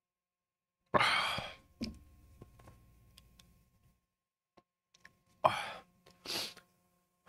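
A man's heavy sighing exhales, one about a second in and two close together near the end, as he breathes against the burn in his mouth from a super-hot chili chip. Faint clicks in between.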